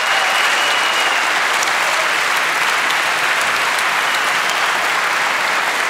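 Audience applauding steadily, a dense, even clapping.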